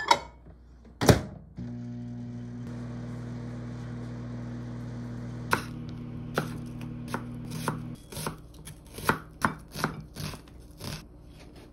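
A microwave oven door is shut with a knock and the microwave runs with a steady hum while it cooks potato wedges. About halfway through, a chef's knife starts chopping a peeled onion on a wooden cutting board: a dozen or so uneven strikes that come faster near the end.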